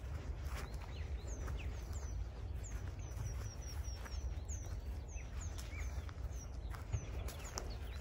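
Small songbirds chirping and singing: many short, high, quick notes, thickest around the middle, over a steady low rumble.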